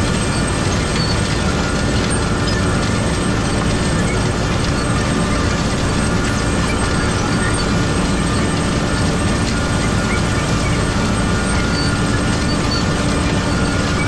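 Tractor-drawn row-crop planter at work, planting soybeans into wheat stubble: a steady, unbroken mechanical running noise of the row units and tractor, with a faint steady hum.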